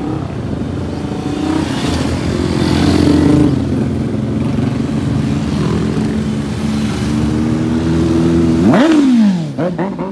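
A group of motorcycles riding past one after another, their engines running together. Near the end one engine climbs sharply in pitch, then falls away as it passes close by.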